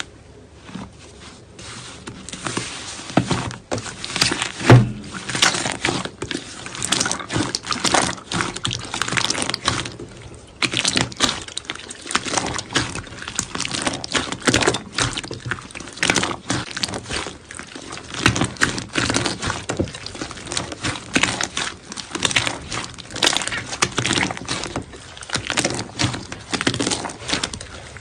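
Hands squeezing and working slime, a continuous run of sticky clicks, pops and crackles.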